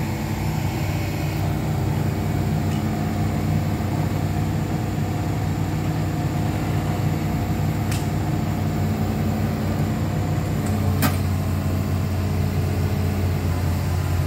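Engine running steadily with a deep, even hum that grows a little stronger just past ten seconds in, and one sharp click about eleven seconds in.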